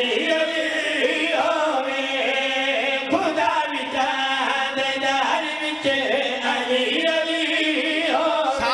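Several men singing a devotional chant together into microphones over a PA system, in long held notes that bend up and down.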